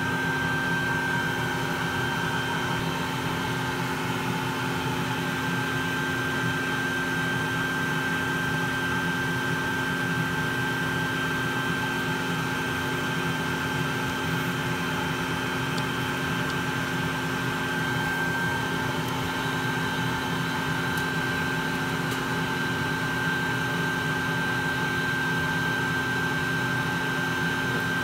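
A bee vacuum running steadily as its hose nozzle sucks honey bees off the comb, its motor giving an even whine with a constant high tone over a low hum.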